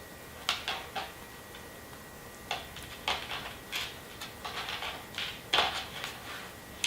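Scattered light clicks and taps of hands handling a freshly rolled rice-paper spring roll and kitchen things on a work surface, about nine short sounds spaced irregularly.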